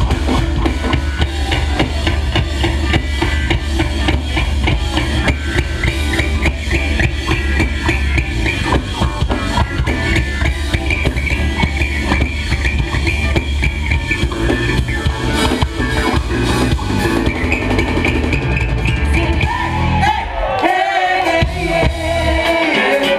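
Live funk band playing, with drum kit and bass driving a steady groove. Near the end the drums and bass drop out in short gaps while the higher parts carry on.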